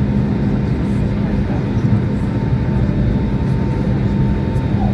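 Jet airliner's engines running steadily while it taxis, a constant drone with a steady low hum and a fainter higher whine, heard from inside the cabin.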